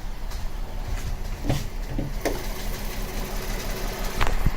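Volkswagen Atlas idling, with several separate short clicks and knocks over the running engine.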